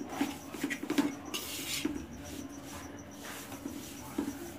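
A metal spoon scraping and stirring mung dal flour as it roasts in ghee in a large kadhai, in irregular strokes. The flour is still partly raw at this stage of the roasting.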